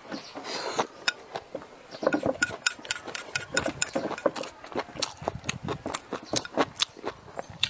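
Close-miked chewing of a mouthful of rice with crunchy pickled sour long beans: many quick, crisp clicks and crunches in an uneven rhythm. Near the start, chopsticks push rice from the bowl into the mouth.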